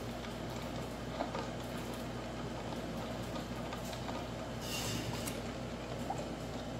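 Steady low electrical hum under a faint noise bed, with a brief scraping hiss about five seconds in as the cream is stirred in the stainless steel bowl.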